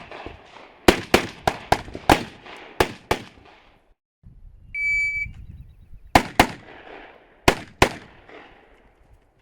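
Gunshots fired in quick succession, about seven in the first three seconds, each with an echo tail. Then a single electronic shot-timer start beep, followed by four more shots in two quick pairs.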